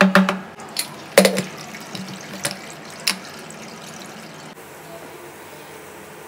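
A metal spoon stirring wet chopped tomatoes and onions in an aluminium pressure cooker, clinking sharply against the pot about six times in the first three seconds. After that comes a quieter steady background.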